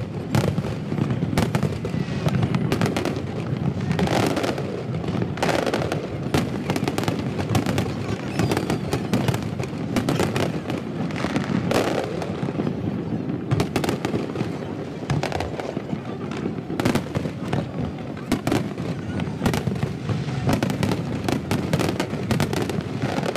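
Large aerial fireworks display: shells bursting and crackling in a dense, near-continuous barrage of bangs.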